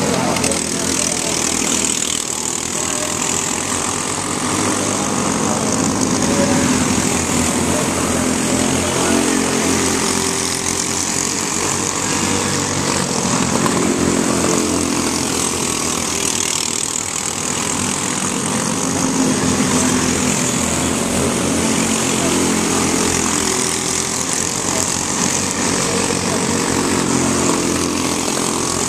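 Microstock race cars running laps on a small oval, their engines swelling and fading again and again as the cars pass.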